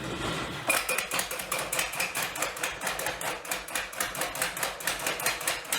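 50 lb Little Giant power hammer running for the first time, its ram cycling in a rapid, even run of metal knocks, about five a second, starting just under a second in. The owner takes the knocking for the ram hitting the spring instead of the dies meeting, because a part had sunk down in its housing.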